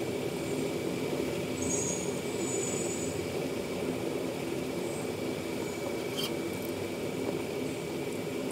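Steady whir of a hot air rework station blowing, with a faint steady high tone over it; a single light click about six seconds in.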